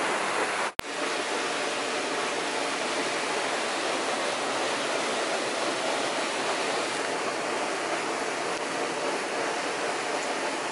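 Shallow stream rushing steadily over rocks, a continuous even wash of water. Just under a second in there is a brief gap with a click, an edit cut.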